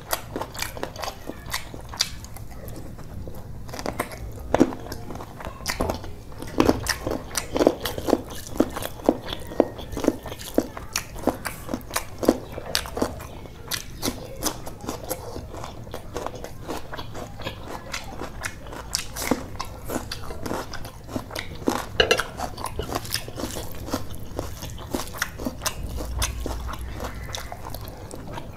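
Close-miked eating: a mouth chewing chicken curry and rice eaten by hand, with crunching bites of raw cucumber. The sound is a stream of sharp, quick chewing clicks that comes in dense runs.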